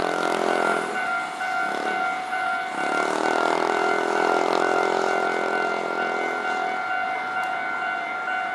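Japanese railway level-crossing warning bell ringing steadily. A lower droning sound from passing traffic comes in at the start and again from about three to seven seconds in.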